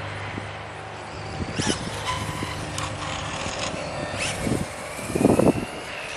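Losi Promoto-MX RC dirt bike's electric motor whining as it rides over asphalt, its pitch rising in the second half. A few light knocks and one low thump about five seconds in.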